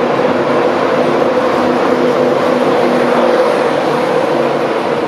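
Virgin Trains East Coast InterCity 225 passing at speed close by: the last Mark 4 coaches and then the Class 91 electric locomotive rush past. The wheels on the rails make a loud, steady rumble, with a hum of a few held tones.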